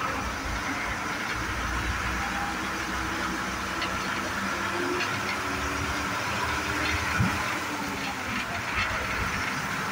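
Cabin noise of a moving MSRTC diesel bus: the engine runs steadily under the rumble and hiss of the road, with one thump about seven seconds in.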